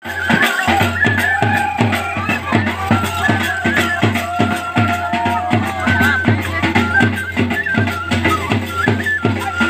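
Dogri folk dance music with a fast, even drum beat of about four beats a second and a melody of held, stepping notes over it.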